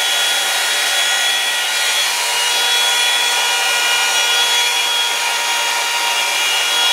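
Revlon One-Step hair dryer brush running steadily, its fan motor whining under the rush of air, as the brush is drawn through hair.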